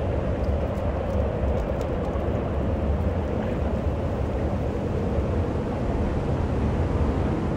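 Steady outdoor background noise: an even hiss over a constant low rumble.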